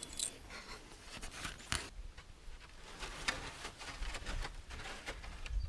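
Faint, scattered clicks, scrapes and rustles of hands working at a wooden shipping crate and its webbing straps, with one sharper click a little under two seconds in and low thumps near the end.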